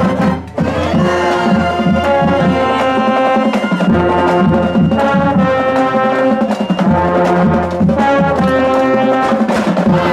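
High school marching band playing, brass holding sustained chords over drums and percussion.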